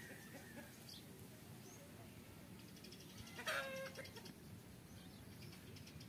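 A chicken gives one short, loud call about halfway through, over faint steady background noise.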